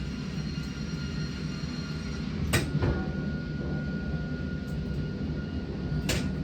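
Log band sawmill machinery running with a steady low rumble and hum, with a sharp knock about two and a half seconds in and another near the end.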